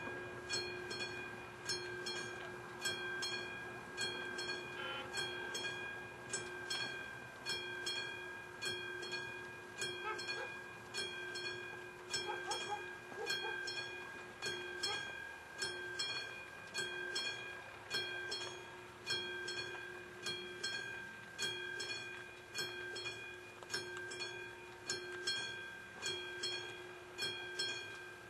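Level-crossing warning bell of an AŽD 71 crossing signal ringing with rapid strikes in a steady rhythm and a ringing tone held between them: the crossing's warning is in operation.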